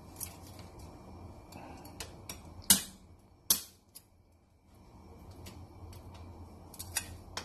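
Cleaver cutting crab legs off on a wooden chopping board: a few sharp clicks and knocks of blade and shell, the two loudest about two and a half and three and a half seconds in.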